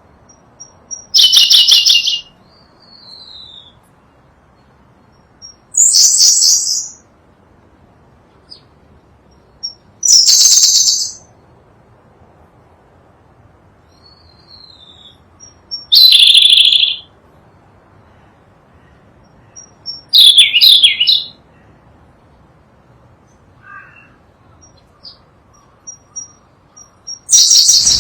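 Sunda blue robin singing: six loud, high, rapid phrases about a second long, spaced four to six seconds apart, each led by a thin high note, with a few soft notes between.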